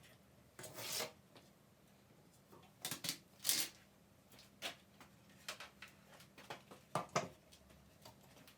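Faint, irregularly spaced short scrapes and light clicks of hand work, with stretches of quiet between them.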